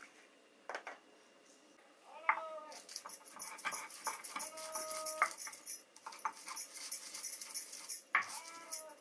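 Hand stone rubbed back and forth on a flat stone grinding slab (Nepali silauto and lohoro), grinding spices in quick rasping scrapes after a single knock of stone. Over it an animal whines three times, the middle call the longest.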